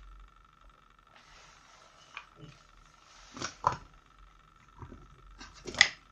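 Plastic parts of a Hunter Node-BT battery irrigation controller being handled and fitted together: soft rustling and scraping, then a few sharp plastic clicks, the loudest near the end.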